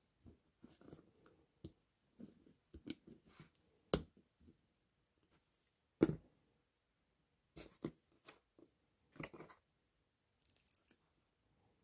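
Small screwdriver clicking and scraping on the little metal gear wheels and chassis of a vintage Fleischmann HO locomotive's gear train while prying at a gear wheel's retaining clip. Light, scattered clicks, with a sharper click about four seconds in and the loudest one about six seconds in.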